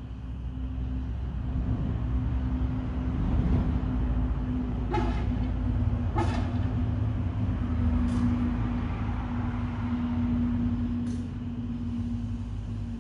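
Steady low rumble with a constant hum, growing louder over the first couple of seconds and broken by four short, sharp clicks.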